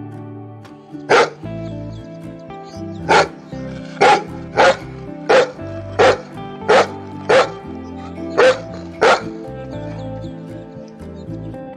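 Large shepherd-type dog barking: one bark about a second in, then a run of nine sharp barks at roughly half-second to one-second intervals, over background music.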